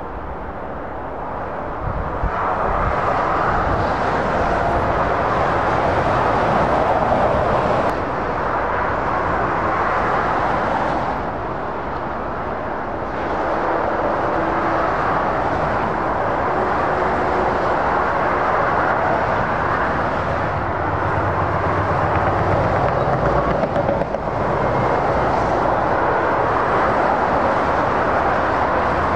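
Heavy motorway traffic: lorries and cars passing in a continuous rush of tyre and engine noise, swelling and easing as groups of vehicles go by.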